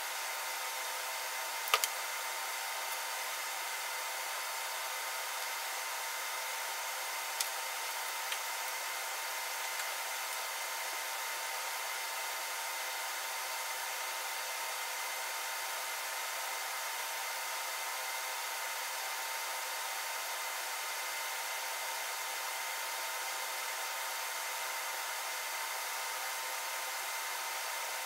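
Steady, even hiss of workshop background noise, with a sharp click a couple of seconds in and a few lighter clicks and taps around seven to ten seconds in as a tape measure and square are handled on the plywood bench.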